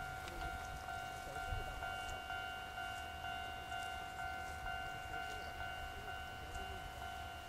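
Japanese level-crossing warning bell ringing steadily as a two-pitch electronic tone, over the low rumble of an electric train approaching.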